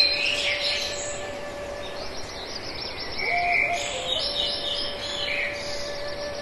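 Birds chirping over a steady held tone, in a pattern that repeats about every four and a half seconds, like a looped ambient soundtrack of birdsong.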